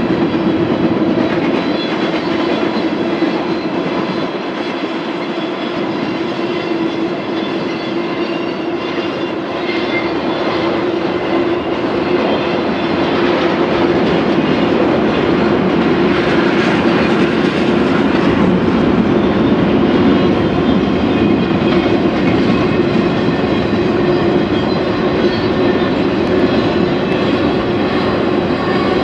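Double-stack intermodal freight cars rolling past, steel wheels on rail making a loud, steady rolling noise with a sustained hum underneath. It grows a little louder about halfway through.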